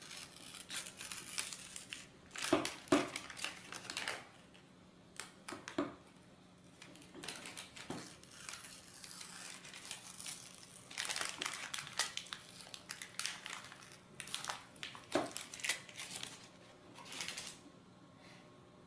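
Protective paper backing being peeled off an acrylic robot-car chassis plate and crumpled in the hand: irregular bursts of crinkling and crackling, with a few sharper snaps.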